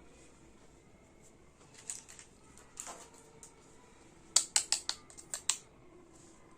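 Small plastic toy kitchen pieces being handled: a few light clicks and a short scrape, then a quick run of about six sharp clicks and taps.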